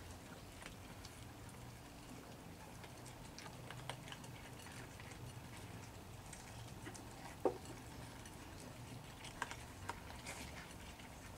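Faint low background hum with a few soft, scattered clicks; one click, a little past the middle, is louder than the rest.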